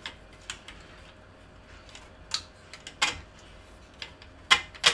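Light metallic clicks and knocks of a sheet-metal fan shroud being worked loose by hand inside a small steel PC case: a few scattered clicks, the loudest near the end.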